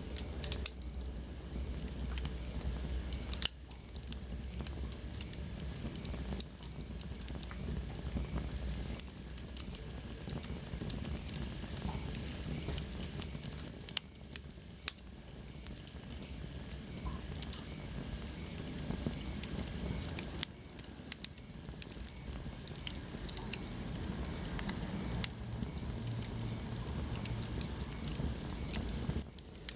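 Wood fire burning in a fireplace, crackling with frequent sharp pops over a steady hiss. About halfway through, a faint high whistle slides slowly down in pitch.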